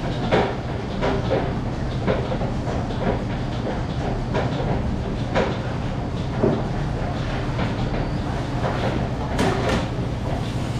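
Busy commercial kitchen: a steady low machine hum with irregular clatter and knocks of kitchen work, roughly one a second.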